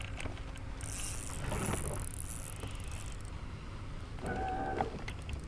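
A cast with a spinning reel: line hissing off the spool for about two seconds. A short steady whine follows about four seconds in.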